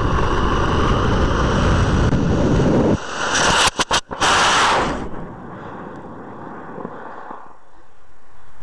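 J485 high-power rocket motor firing at the launch rail: a loud rushing noise, then about three seconds in a harsh blast of hissing with brief dropouts as the rocket leaves the rail. The roar fades away over the next couple of seconds as it climbs.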